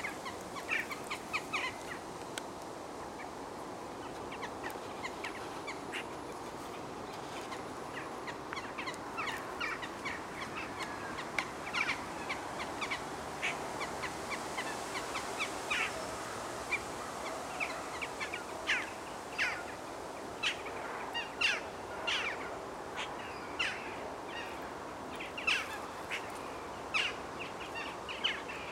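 Dawn chorus of several wild birds: many short calls and chirps over a steady faint background hiss, the calls growing busier after the first several seconds.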